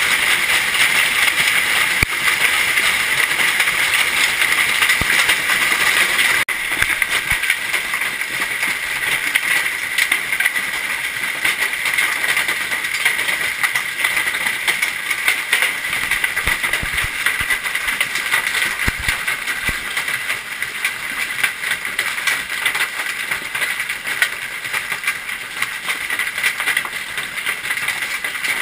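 Golf-ball-sized hail pelting down hard: a dense, unbroken clatter of countless impacts, a little quieter after about six seconds.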